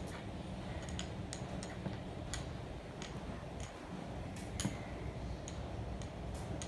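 Light, irregular clicks and taps from two kittens playing at a cardboard box, their paws and claws on the box and the tiled floor, over a steady low hum.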